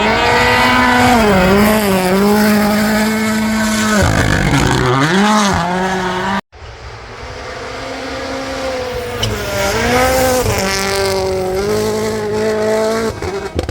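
Rally car engines revving hard, the pitch climbing and dropping repeatedly through gear changes. About halfway through the sound cuts off abruptly, then another run of engine sound builds up and revs through the gears again.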